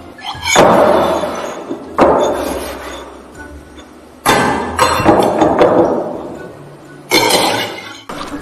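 Stainless steel bowls knocked and clattered together as foley for a baby banging a metal bowl on the floor. A string of ringing metal clangs, each fading away, with a quick flurry of knocks in the middle.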